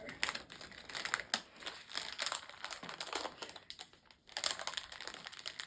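Crinkling of a blind bag's packaging as it is handled and opened, a fast run of small crackles with a short pause about four seconds in.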